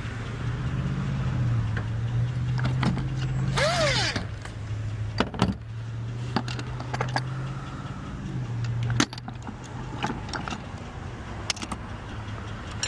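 A motor vehicle's engine running with a steady low hum, while metal tools clink and clank as they are rummaged through and handled, with a louder clatter a few seconds in.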